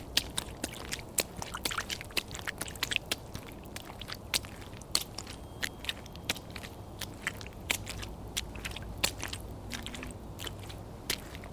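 Footstep sound effect: steps on a crunching surface, heard as a dense run of sharp, irregular clicks several times a second.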